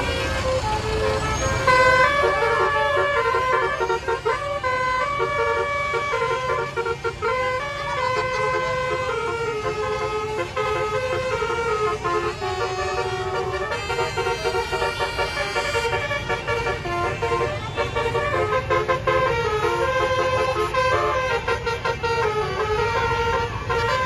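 Bus 'telolet basuri' multi-tone horn playing a continuous melody of short stepped notes, over the low rumble of engines on the road.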